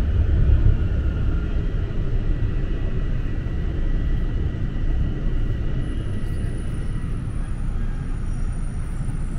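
Rumble of a TTC Toronto Rocket subway train heard from inside the car as it runs through the tunnel, slowing on its approach to a station. The rumble eases a little, and from a bit past the middle thin, steady high whining tones come in.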